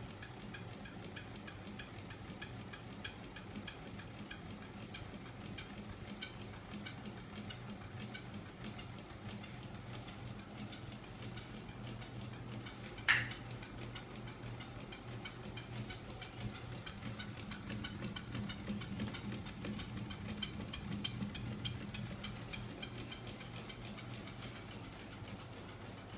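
Homemade magnet-driven flywheel machine running under its small 24 V DC electric motor: a steady low hum with continuous rhythmic clicking from the spinning crank and magnet assemblies. One short, sharp squeak about halfway through, and the running grows somewhat louder for a few seconds after it.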